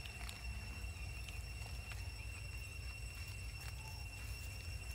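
Outdoor ambience: a steady low rumble with a thin, steady high-pitched tone over it, and a few faint scattered clicks.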